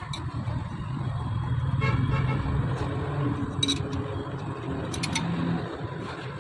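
A motor vehicle engine running, swelling about halfway through and then easing off. A few sharp metallic clinks of a spanner on the rocker-arm nuts come through over it.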